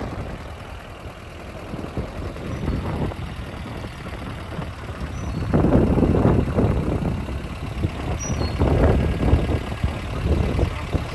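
Jeep driving slowly on a paved country road: the engine runs under a low rumble of road and wind noise, which swells louder about halfway through and again a little later.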